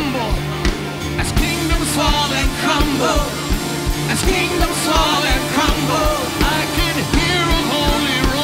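Live worship band music: a steady drum beat about three times a second under a held bass note, with a wavering, vibrato-laden melody line on top.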